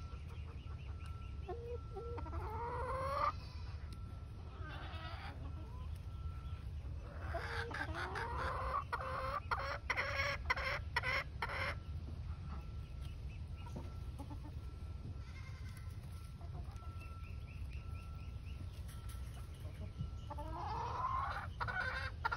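A flock of hens clucking and calling while they feed, in three bouts of rising calls, the longest in the middle with a run of sharp ticks.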